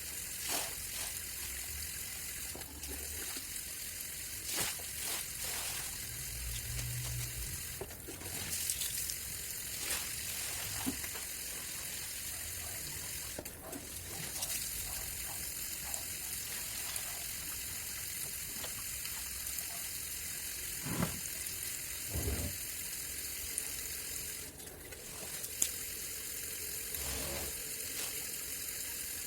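Water running steadily with a hiss, with scattered clicks and a few dull knocks from items being handled while cleaning.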